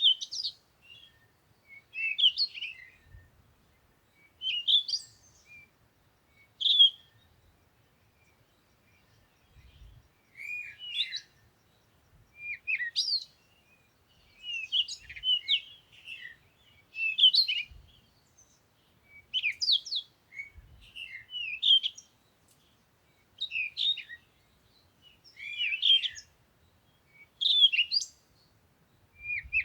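Songbird singing: short, quick chirping phrases repeated every one to two seconds, with a longer pause about a quarter of the way in.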